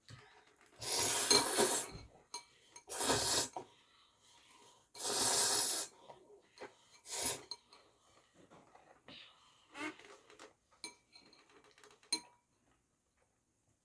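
Three loud noisy slurps of spicy instant noodles, followed by light clinks and scrapes of utensils against the bowl.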